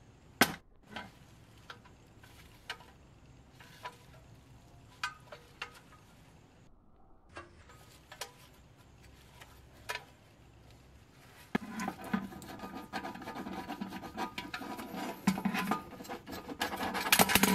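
Workshop handling noises: scattered light clicks and knocks, then, from about two-thirds in, a continuous rough rubbing and scraping, like a part being worked with a tool, that stops abruptly at the end.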